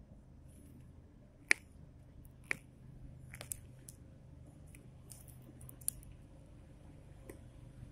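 Hand tools and stiff Cat6 LAN cable being worked: a few scattered sharp clicks and snips, the loudest about a second and a half in, with soft handling rustle between them.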